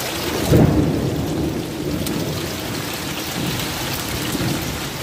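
Heavy rain and hail pattering on corrugated tin roofs as a steady hiss. About half a second in, a rumble of thunder swells up and then slowly dies away.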